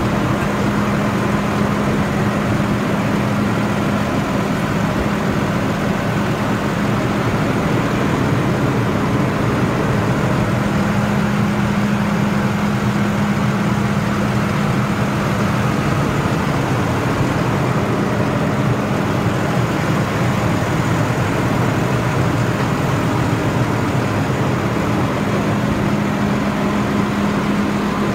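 New Holland T7.315 tractor's six-cylinder diesel engine idling steadily, with an even low hum.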